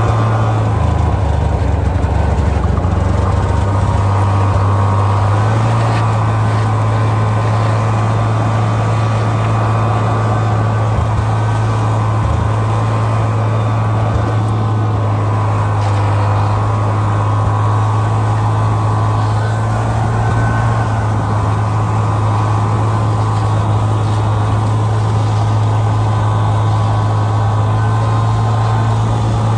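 Snowmobile engine running steadily while under way, heard from the driver's seat as a constant low drone. A deeper rumble joins it for a few seconds near the start.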